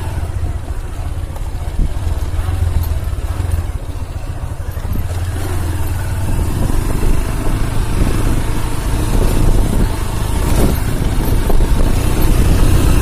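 A motorcycle engine running off-road, its low pulsing note growing louder over the second half as the bike comes closer.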